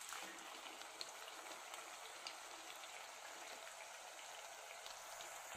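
Rice-flour thattai deep-frying in hot oil on a high flame: a faint, steady sizzle with a few small crackles.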